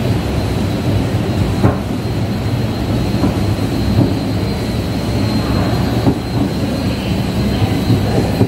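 Pillar escalator running: a steady mechanical rumble from the moving steps and drive, with a few faint clicks.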